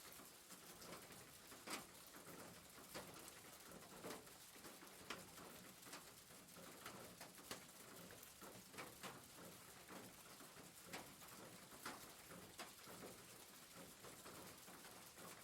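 Rain falling on a roof, heard faintly: a steady patter with individual drops ticking sharply at irregular moments.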